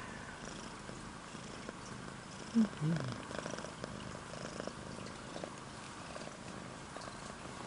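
Domestic cat purring steadily, up close, while being stroked. About two and a half seconds in, two short low vocal sounds stand out briefly above the purr.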